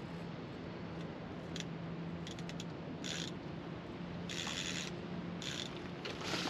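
Fishing reel being wound in several short spells, its gears turning with a fine ratcheting click, taking up the slack line after the cast so the lead stays in direct contact.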